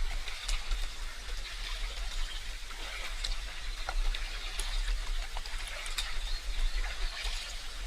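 Water trickling and lapping, with many small splashy ticks of drops, over a steady low rumble.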